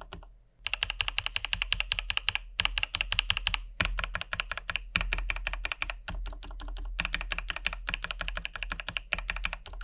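Typing on an IQUNIX L80 wireless mechanical keyboard with stock TTC Ace switches: quick runs of keystrokes with short pauses between them.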